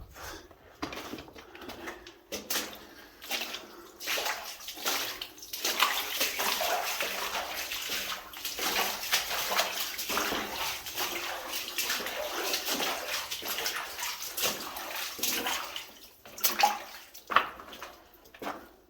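Footsteps wading through water in a flooded mine passage, with irregular splashing and sloshing that is busiest from about four to sixteen seconds in and dies away near the end.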